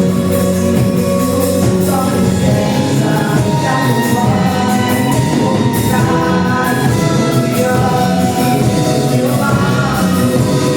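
Gospel worship music with singing over a full band, drums and percussion keeping a steady beat.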